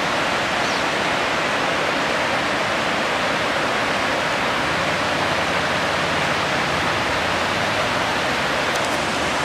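Yellowstone River running fast over shallow riffles, a steady rush of water.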